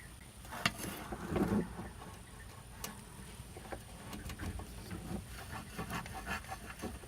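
A hard drive and its cables being handled and snapped into place in a PC case: a run of small plastic and metal clicks and knocks, with a sharper click about half a second in.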